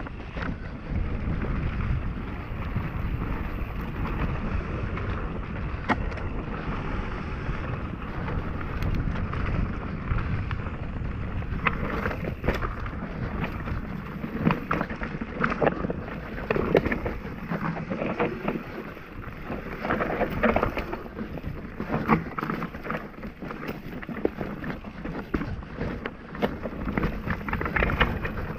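Mountain bike ridden down a dirt singletrack, with wind rushing over the camera's microphone and the tyres rolling on the ground. About twelve seconds in, the riding turns to rapid, uneven knocks and rattles as the bike rolls over rocks and roots.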